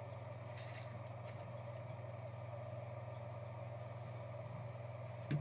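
Steady low room hum from running equipment, with a faint rustle about half a second in and a thump right at the end.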